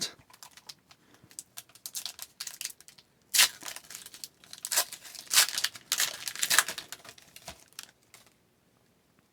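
Hockey card pack wrapper being torn open and crinkled: a run of crackling rustles, loudest in the middle, that dies away about eight seconds in.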